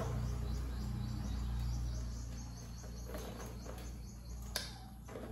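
Steady low hum with faint high chirping over it, mostly in the first half, and one sharp click about four and a half seconds in.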